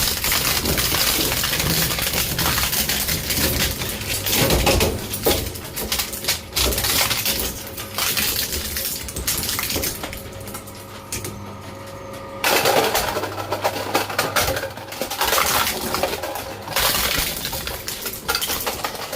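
Shredder machine crunching a plastic Nerf gun: dense crackling and clattering of breaking plastic. About ten seconds in the crunching drops away for a couple of seconds, leaving a steady hum, then starts up again.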